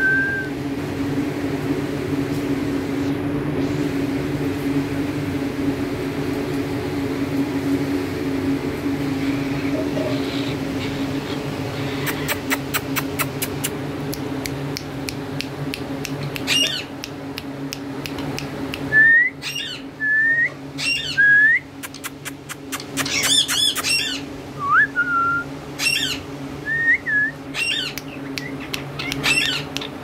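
Caged green parakeets calling: from about halfway in, short rising whistled chirps and harsh squawks come in repeated bouts with runs of sharp clicks. A steady low hum runs underneath.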